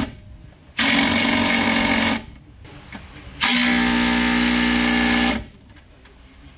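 Cordless impact wrench (rattle gun) undoing the bell-housing bolts of a T56 gearbox. It runs in two bursts, about one and a half and two seconds long, with a steady mechanical whine.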